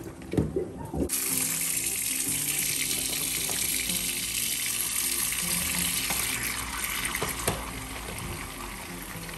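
Water from a kitchen tap runs steadily into a plastic basin standing in a stainless steel sink. The tap starts about a second in, after a few knocks of the basin against the sink, and the rush grows a little softer in the last few seconds as the basin fills. Background music plays underneath.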